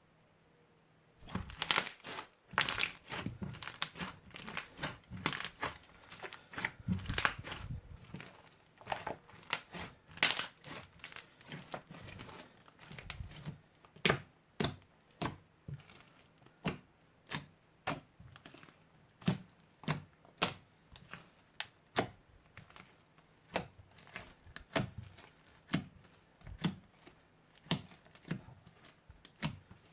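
Crunchy slime being squeezed and pressed by hand, giving sharp crackling pops. The pops start about a second in, come thick and fast at first, then thin out to roughly one or two a second.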